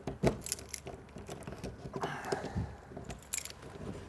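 Keys jangling, with a scatter of small clicks and knocks, as a hand works the key in the lock of a motorhome's exterior storage hatch.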